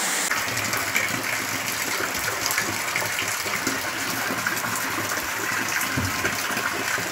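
A stream of rainwater pouring into a plastic barrel: a steady splashing gush.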